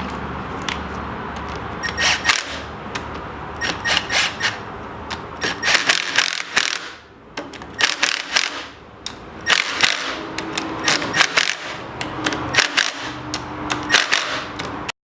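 Metal hand tools and engine parts clicking and clanking against each other in irregular clusters, each click with a short metallic ring. The sound cuts off suddenly near the end.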